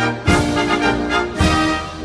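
Orchestral brass music: loud, held brass chords, with two fresh accented chords about a quarter second and a second and a half in, each struck together with a low drum hit, fading near the end.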